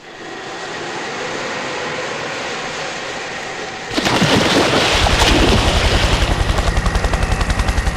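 Aircraft noise: a steady rushing hiss swells in, then about four seconds in a louder, fuller aircraft sound takes over, with a fast, even low beat.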